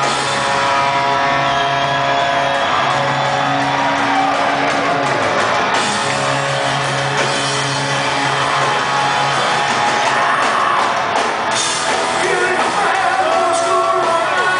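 Rock band playing live in a large hall, with singing and shouts over the instruments.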